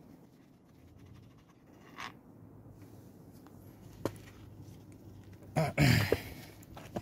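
Hex key working at very tight oil-filter cover bolts on a Yamaha Virago 535 engine: faint scraping with a few sharp clicks, and a louder, short burst of scraping and clatter near six seconds.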